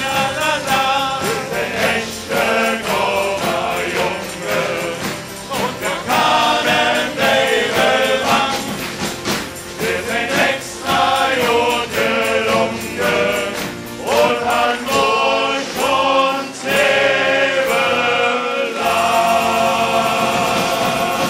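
A group of men singing a German carnival song in chorus to acoustic guitars, with the hall clapping along to the beat.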